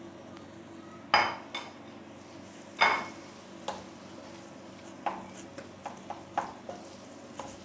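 Wooden spatula stirring boiled potatoes and mashed chickpeas into masala in a non-stick frying pan. It knocks against the pan twice, loudly and with a short ring, then makes a run of lighter taps and scrapes, over a faint steady hum.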